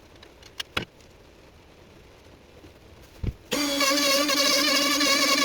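A few light clicks and a knock, then about three and a half seconds in a handheld wood router's motor starts abruptly and runs loud and steady with a high, wavering whine.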